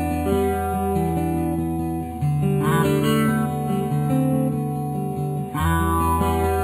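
Background instrumental music with guitar, over a held bass note that changes about five and a half seconds in.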